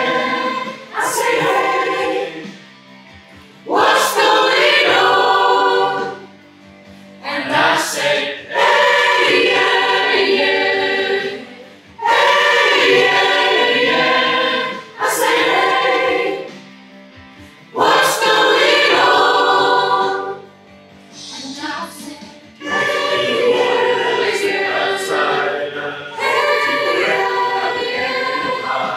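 A choir singing in phrases of a few seconds each, separated by short pauses.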